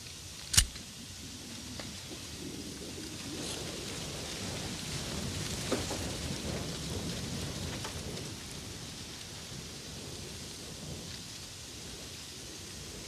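A low rumbling noise like wind, swelling through the middle and easing off again. It is broken by one sharp, loud crack about half a second in and a fainter knock near the middle.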